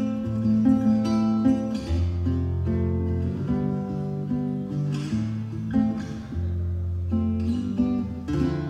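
Acoustic guitar playing a slow introduction: strummed chords with held, ringing notes.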